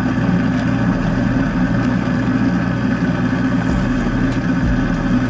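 Kitchen garbage disposal running with a steady motor hum while a foaming disposal-cleaner tablet works inside it.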